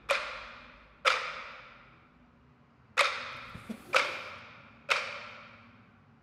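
Five sharp, ringing percussive hits from the film's sound design, each dying away over about a second: two a second apart, a short pause, then three more a second apart.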